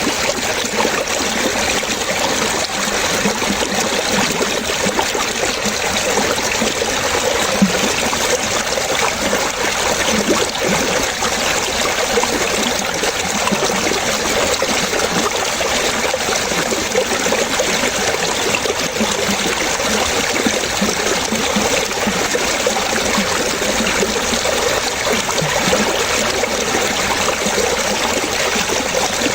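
Water splashing and trickling steadily, a continuous stream-like babble with no pauses or changes.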